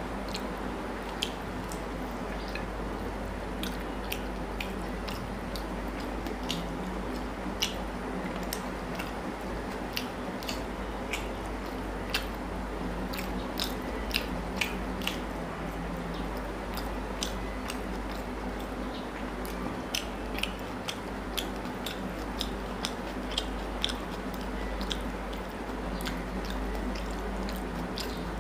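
Eating by hand: fingers mixing rice and chicken curry on a plate, and chewing. Many small, sharp clicks are scattered throughout, over a steady low hum.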